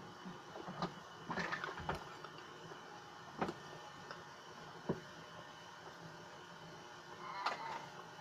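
A person eating quietly: chewing and mouth sounds with a few sharp clicks, a short crackly cluster about a second and a half in and another near the end, over a steady faint background hum.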